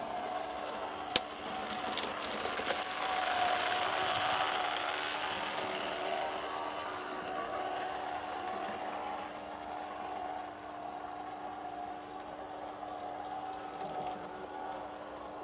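Märklin E19 model electric locomotive running light on metal model track: a steady whir of motor and gearing with wheel rumble, growing louder to about four seconds in and fading slowly after. There are a few sharp clicks around one and three seconds in.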